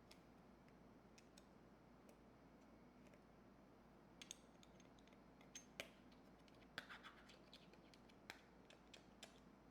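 Faint scattered clicks and scratches of small plastic and metal electronics parts being handled and pried apart, starting about four seconds in, over a quiet room background.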